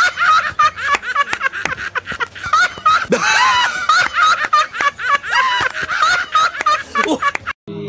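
Two men laughing hysterically in high-pitched cackles, with repeated hand claps throughout.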